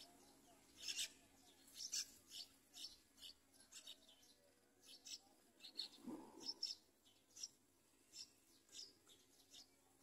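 Yellow-vented bulbul nestlings giving faint, thin, high-pitched begging cheeps, short and irregular, a couple a second. A soft lower sound comes about six seconds in.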